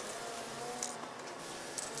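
Aerosol spray-paint can hissing in short spurts, with a brief louder spurt about a second in.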